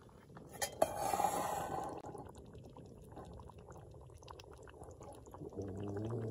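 Aluminium billy pot lid lifted off with a light metal clink, then beef stew simmering in the pot, small bubbles popping with scattered soft ticks. Near the end a person hums a low "mmm".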